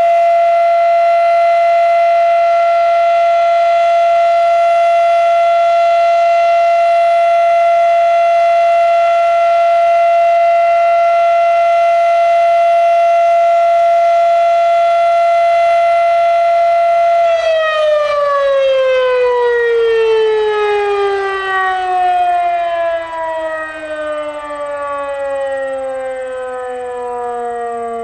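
Fedelcode Model 7 rotary siren sounding its alert tone, a steady loud pitch near 700 Hz. About two-thirds of the way through, the pitch begins falling steadily as the siren spins down, with a second, lower tone appearing and falling with it.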